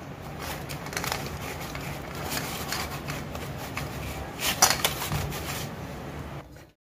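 Hands rolling and pressing soft dough on a floured metal plate: a soft rubbing with a few light knocks against the plate, the loudest about four and a half seconds in. The sound stops abruptly just before the end.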